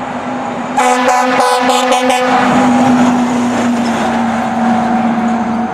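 Fire engine sound effect: a steady vehicle drone, with a run of rapid pulsing horn-like blasts, about five a second, starting about a second in and lasting under two seconds.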